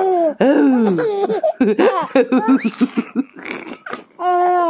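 Laughter during tickling play with a baby: high, sliding sing-song vocal sounds, then a run of quick laughing pulses in the middle, and another high drawn-out vocal near the end.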